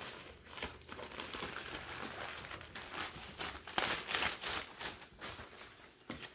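Packaging around a piece of clothing crinkling and rustling as it is handled and opened, in irregular bursts.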